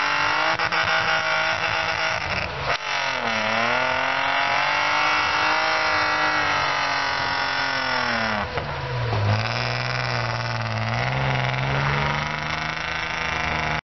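Off-road 4x4's engine running at high revs in deep mud. The engine note sags under load about three seconds in and again about two-thirds of the way through, then picks back up each time.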